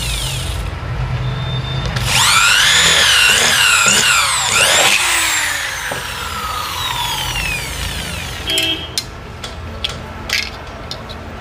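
Handheld electric drill boring a mounting hole for a motorcycle number plate, its motor pitch wavering up and down under the trigger. It winds down at the start, starts again about two seconds in, winds down again, and a few sharp clicks follow near the end.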